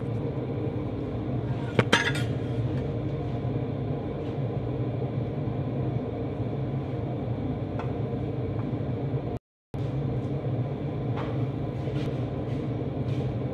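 Steady low hum and rumble of a kitchen while a pancake cooks in a frying pan on a gas burner, with one sharp metallic clink about two seconds in and a few light ticks. The sound cuts out briefly about nine and a half seconds in.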